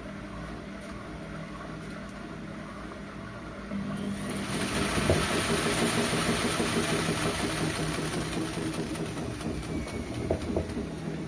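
Whirlpool washing machine running with a steady hum. About four seconds in, a much louder rushing, hissing noise sets in and carries on, with a couple of knocks and rattles.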